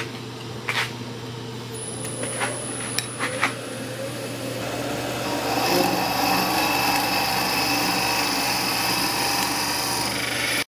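Wood lathe running with a steady hum while a small hollowing tool cuts inside the spinning exotic-hardwood goblet cup. A few light clicks come in the first few seconds, then the scraping cut gets louder from about five seconds in.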